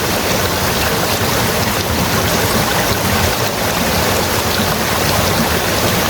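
Steady rushing of a flowing stream, an even noise with no breaks.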